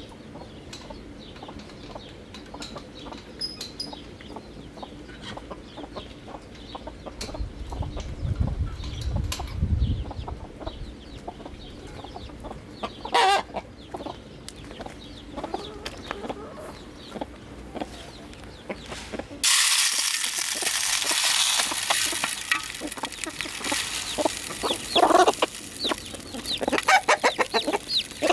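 Chickens clucking, with many small ticks throughout and a louder call about halfway. A steady hiss sets in suddenly about two-thirds through, and several loud clucks follow near the end.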